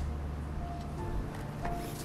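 Background music: an instrumental track with held bass notes under short melody notes.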